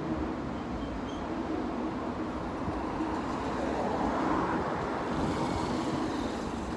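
Steady rumble and hiss of road traffic, swelling about four seconds in.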